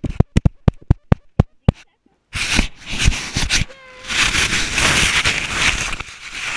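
Sand being packed onto a chest-mounted GoPro's housing: quick, irregular thumps at about five a second for the first two seconds. After a brief dropout comes loud scraping and rubbing of sand and hands against the housing, with voices.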